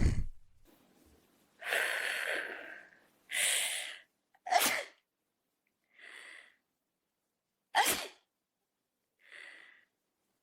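A run of separate AI-generated sneezes, about six in all, one every second or so. The sharpest and loudest come about four and a half and eight seconds in, and a couple are faint.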